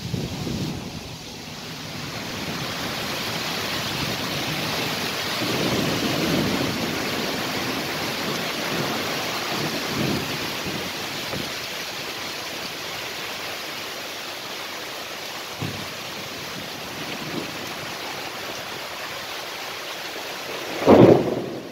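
Heavy rain hissing steadily through a storm, swelling in about two seconds in, with low gusts of wind; a loud rumble of thunder near the end.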